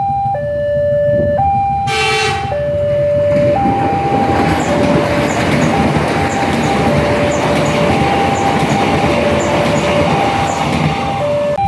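Railway station warning siren in a two-tone hi-lo pattern, switching pitch about once a second. A train horn sounds briefly about two seconds in. Then a passing train's running noise rises loud under the siren, with a regular ticking, until it drops away near the end.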